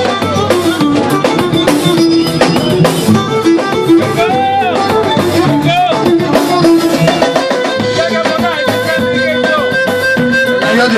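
Live Greek folk band playing an instrumental passage: a bowed lyra carries the melody over plucked lute, keyboard and a drum kit keeping the beat.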